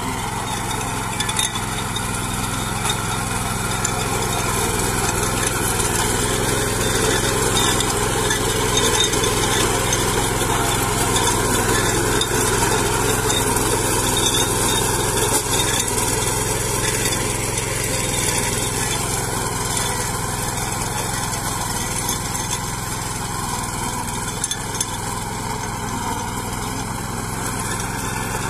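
Small single-cylinder petrol engine of a 10 HP mini power weeder running steadily as its 32-blade rotavator tills dry, cloddy soil.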